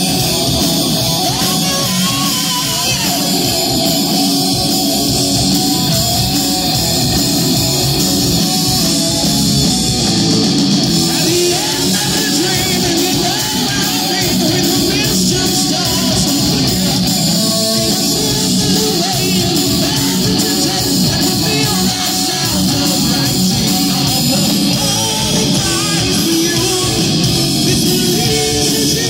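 Live rock band playing loud, with electric guitars, bass and drums and a man singing over them.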